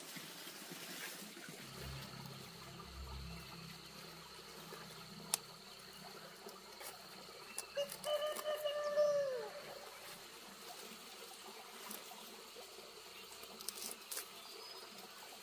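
Rain-wet leafy greens being handled by hand, with a few sharp clicks near the end as a knife cuts through a stalk, over a steady faint hiss. About eight seconds in, a single drawn-out animal call, about a second and a half long, dropping in pitch at the end.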